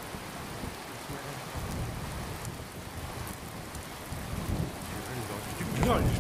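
Steady rain falling, with a low rumble beneath it.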